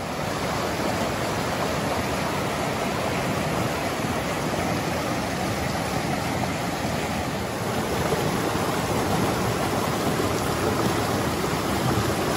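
Fast-flowing mountain stream running over rocks, a steady, unbroken rush of whitewater.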